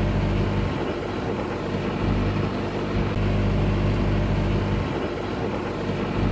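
The sailboat's inboard diesel engine running steadily at low revs, a constant low hum.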